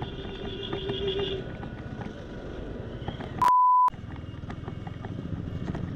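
Motorcycle riding noise on a rough road, made up of engine, wind and small rattles and knocks, with a steady tone that stops about a second and a half in. About three and a half seconds in, a short, loud, pure beep cuts out all other sound for under half a second: an edited-in censor bleep.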